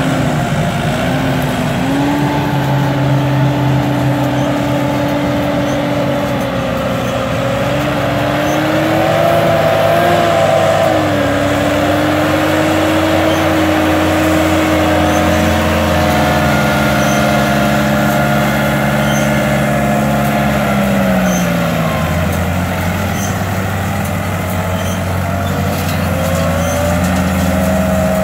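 Tümosan tractor's diesel engine running hard under load, pulling a straw-making machine and trailer up a slope. Its pitch rises and falls several times, with a dip a little after twenty seconds in.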